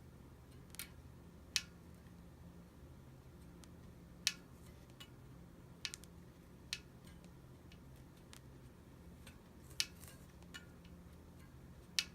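Sharp, isolated clicks from the spokes of a Campagnolo Eurus wheel, about eight at uneven intervals with a close double click near the middle. It is an unexplained abnormal noise that also comes whether the cranks are turning or not, which points away from the drivetrain.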